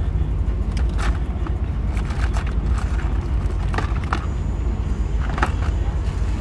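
Steady low rumble in a car cabin, with several short sharp clicks scattered through it.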